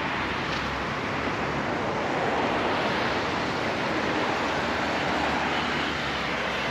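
Steady rushing background noise with no distinct clicks or knocks.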